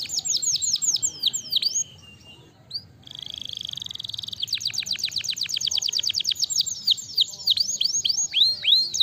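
Domestic canary singing: rapid trills of quick falling notes, a brief pause about two seconds in, a steady held note, then another fast trill that slows into longer falling notes near the end.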